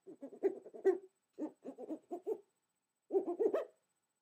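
A woman making quick, owl-like hooting sounds with pursed lips, in three runs of short hoots with pauses between them.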